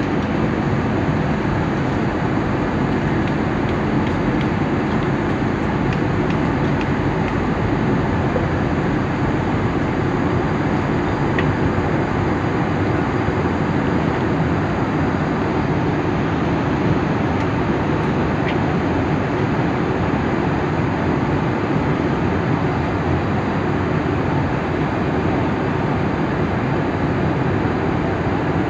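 Steady cabin noise of an airliner in flight: the even roar of the engines and rushing air heard from a window seat.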